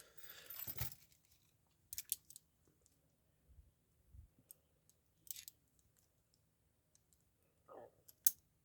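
Chicago Model 1000 steel handcuffs being handled: scattered faint metallic clicks and chain jingles, with sharper clicks about two, five and eight seconds in.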